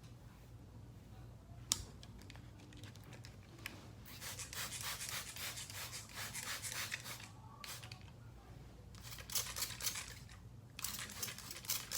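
A click, then repeated bursts of brisk rubbing and scratching as a wig brush is worked through a wet wig's hair.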